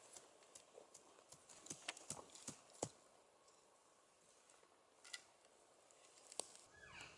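Faint scattered footsteps and snaps in dry grass and twigs: a quick cluster of clicks about two seconds in, then a few single ones later.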